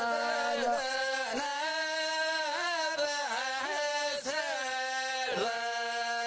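A single voice chanting in a Middle Eastern style, holding long notes joined by ornamented slides in pitch.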